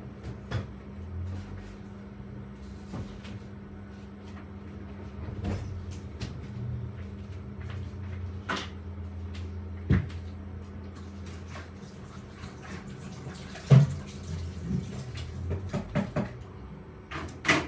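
Scattered household knocks and clicks over a steady low hum, with the sharpest knocks about ten seconds in and again near fourteen seconds in, followed by a run of smaller knocks.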